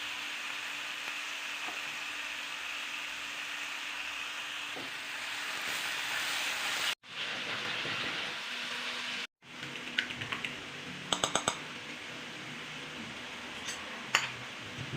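Eggs and sausage sizzling steadily in a frying pan. The sound drops out briefly twice midway, and a few sharp clicks follow in the second half.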